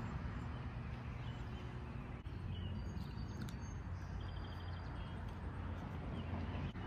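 Outdoor ambience: a steady low rumble with faint bird chirps above it, and one short rapid trill of pips about four seconds in.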